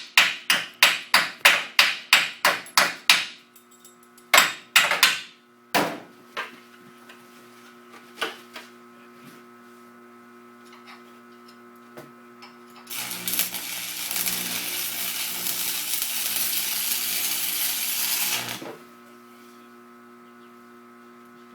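Hammer blows on steel: a quick run of ringing strikes, about four a second, for the first three seconds, then a few single blows. Later comes a steady loud hiss lasting about six seconds that stops abruptly, over a faint constant hum.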